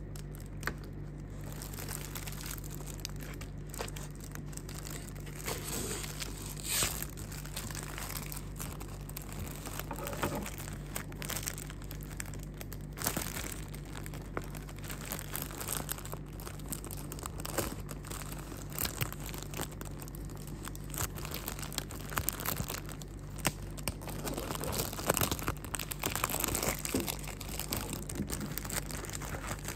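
Clear plastic packaging bag crinkling and rustling as hands handle and open it, in irregular bursts that grow louder near the end, over a steady low hum.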